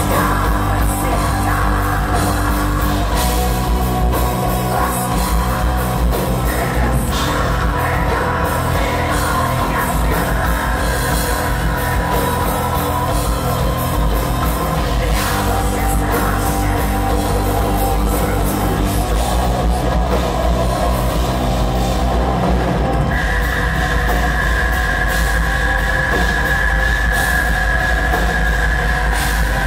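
Black metal band playing live: drums, distorted guitars and bass under a singer's vocals, dense and loud throughout. About three quarters of the way through, a high held note enters over the rest.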